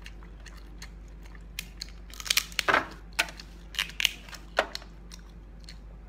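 Cooked lobster shell cracking and snapping as it is peeled off by hand: a run of sharp crackles from about one and a half to four and a half seconds in, loudest near the middle.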